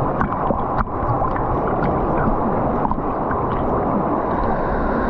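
Water swishing and sloshing close to the microphone as people swim, with a steady rushing noise and small scattered splashes and clicks.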